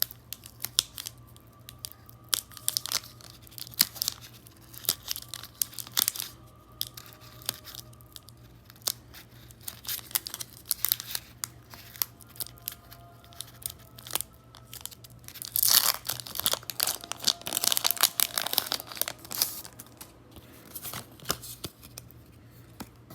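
Foil wrapper of a Pokémon trading-card booster pack being torn open and crinkled. The crackling comes in scattered bursts and is densest for a few seconds about two-thirds of the way through.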